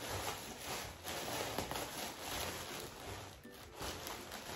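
Clear plastic bag crinkling and rustling, irregular and continuous, as a soft throw blanket is pulled out of it.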